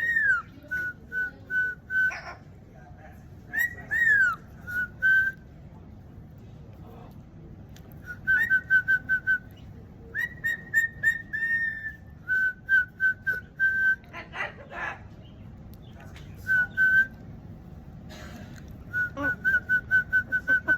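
Pet bird whistling: runs of quick, even, high whistled notes, about five or six a second, with a few swooping whistles, broken by short pauses.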